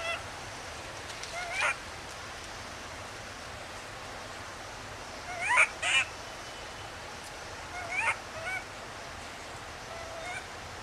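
Infant long-tailed macaque crying: short, high, rising whimpering calls, singly or in pairs a few seconds apart, the last one faint. These are an infant's cries for care and attention.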